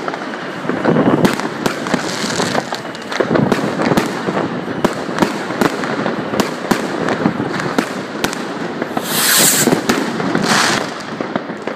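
Many fireworks going off together: a dense, continuous run of bangs and crackles, with two louder hissing rushes near the end.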